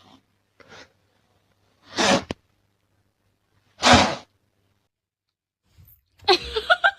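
Two sneezes about two seconds apart, each a short, sharp burst. Voices start near the end.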